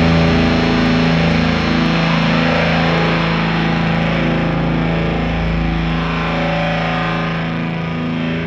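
Background music: rock with distorted electric guitar holding long, steady notes, easing slightly in level toward the end.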